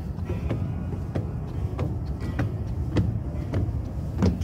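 Footsteps climbing stairs and stepping onto a wooden deck, a little under two steps a second, over a steady low rumble; the loudest step comes near the end.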